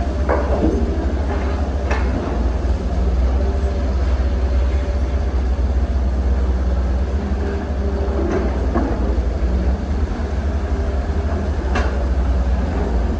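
Wheel excavator's diesel engine running steadily under load, a deep rumble, with a few sharp knocks as it works, about two seconds in and again near the end.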